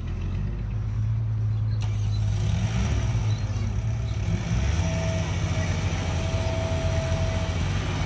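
Heavy diesel engine of earthmoving machinery running under load, a deep steady rumble that swells up at the start. A hissing noise builds from about two seconds in, and a thin steady whine sounds for a couple of seconds in the second half.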